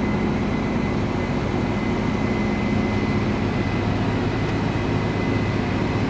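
Steady drone of harvest machinery, a tractor pulling a grain cart with a Case IH combine running alongside, heard from inside the tractor cab. A thin, high, steady whine sits over the low engine hum.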